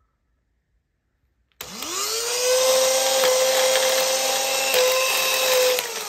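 Babyliss 1800 W hair dryer switched on after a second and a half of silence: its motor and fan whine up to speed within about a second, run steadily, then start to wind down near the end. The running sound is off and the airflow weak, which the owner traces to the fan slipping loose on the motor shaft.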